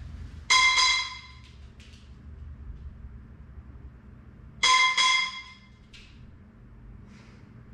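Two sharp metallic strikes about four seconds apart, each a quick double hit that rings briefly with a bright, clear tone: a sudden startle noise for the sound-sensitivity part of a puppy aptitude test.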